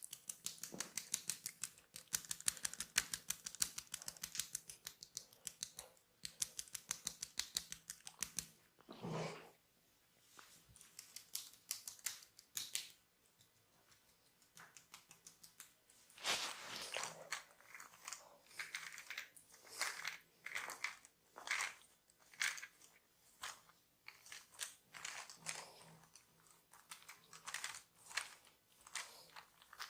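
Barber's hands massaging skin and hair. A fast run of crisp clicks lasts about eight seconds, then scattered clicks and rubbing swishes follow.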